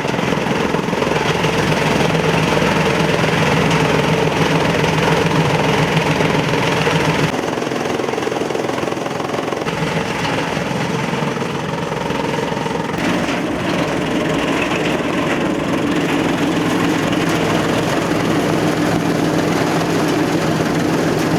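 Motor-driven ring-model chaff cutter running, a steady machine hum over a dense mechanical clatter. The sound shifts in character about seven seconds in and again about thirteen seconds in.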